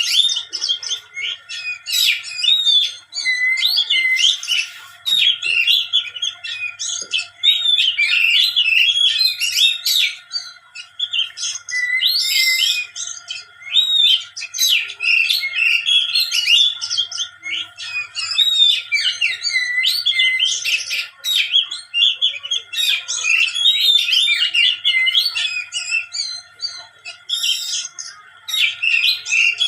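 A songbird singing a fast, varied song of chirps, trills and chatter in long runs with short pauses, over a faint steady hum.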